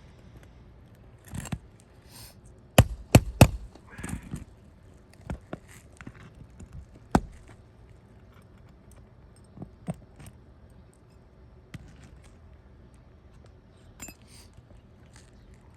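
A roofing tool prying under brittle asphalt shingles to pull out nails: sharp knocks and clicks with scraping and crackling between, three loud knocks close together about three seconds in and another about seven seconds in.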